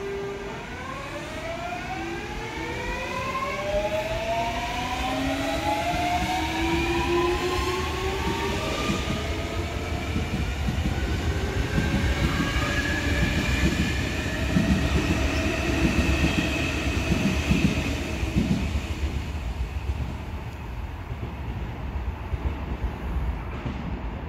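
Seoul Subway Line 4 electric train pulling out of the platform. Its inverter-driven traction motors whine in several tones that climb in pitch as it gathers speed. The cars then rumble and clatter along the track, easing off near the end as the train leaves.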